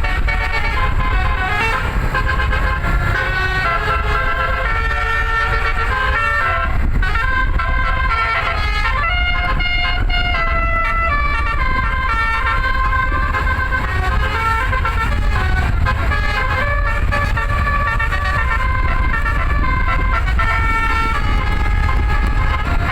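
A bus's telolet basuri musical horn playing a running melody of short stepped notes without a break, over the low rumble of the bus.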